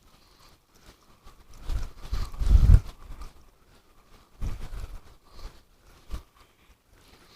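Strong gusts of wind buffeting the microphone in two heavy rumbling surges, with a few knocks and handling noise in between.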